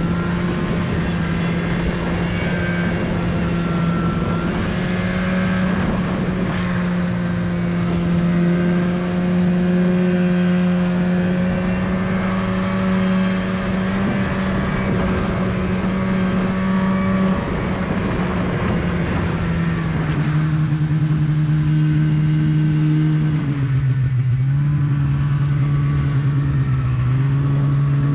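Snowmobile engine running under way at a steady pitch, which drops about two-thirds of the way through and dips briefly twice near the end as the throttle eases.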